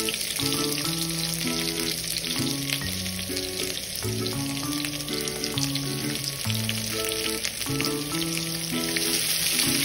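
Chopped onion frying in hot oil with tempered spices and garlic, a steady crackling sizzle. Background music of slow, held notes plays underneath.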